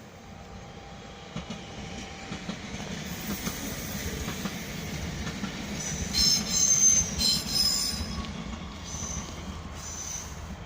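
A train moving through the station, wheels clicking over rail joints and points, with high-pitched wheel squeal from about six seconds in that is loudest around seven seconds and comes back near the end.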